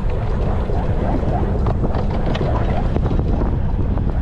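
15-inch gauge steam locomotive River Mite running along the line, heard from on board: a steady low rumble with frequent short clicks and knocks, and wind buffeting the microphone.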